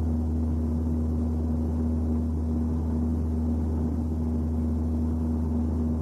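A steady low rumbling drone with a constant hum tone above it, unchanging throughout.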